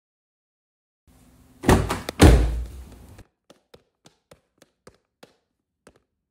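Car door sound effect: a clunk, then a loud slam about half a second later that rings briefly. It is followed by a run of about eight light footsteps.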